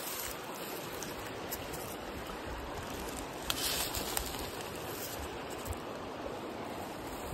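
Steady outdoor rushing noise, with a short rustle about three and a half seconds in.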